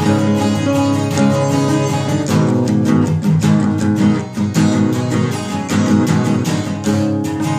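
Guitar strummed in a run of ringing chords.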